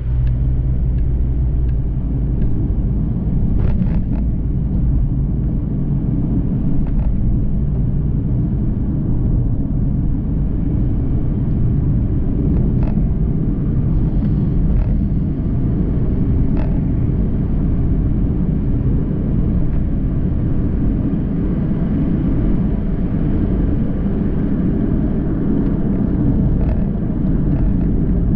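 Road noise inside a moving car's cabin: a steady low rumble of engine and tyres, with a few faint clicks along the way.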